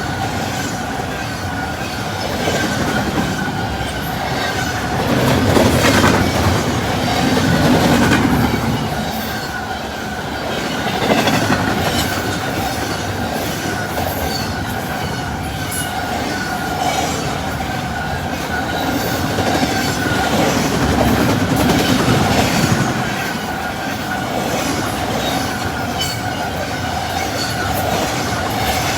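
Intermodal freight train's cars rolling past at about 70 mph: a continuous wheel-on-rail rumble with a rapid clickety-clack of wheels over the rail joints and a steady ringing tone from the wheels.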